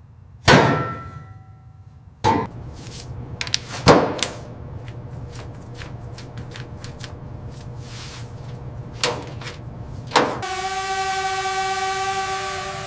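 Metallic clanks and knocks: a ringing clang about half a second in, further sharp knocks around two and four seconds, and two more near nine and ten seconds. Just after ten seconds a sustained sound of several steady pitches starts and slowly sinks in pitch.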